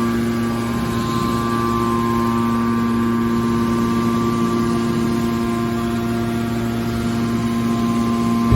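Metal press baler's hydraulic power unit running with a steady hum, with a short knock right at the end.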